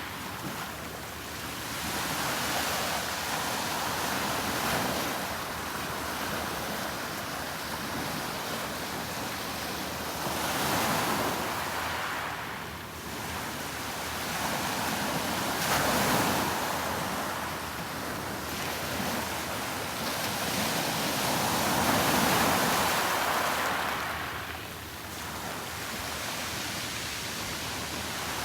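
Sea waves breaking and washing up on a beach, swelling and fading every few seconds.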